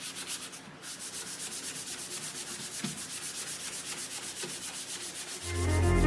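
Hand sanding of a painted MDF craft box with a sanding block, quick even back-and-forth strokes about four a second, sanding down the dried coat of PVA paint before the next coat. Music comes in near the end.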